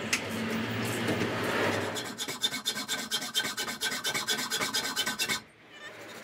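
A saw blade rasping through metal in quick, even strokes with a metallic ring, cutting at a stuck screw. It starts about two seconds in and stops suddenly near the end. Before it there is a steady rush with a low hum.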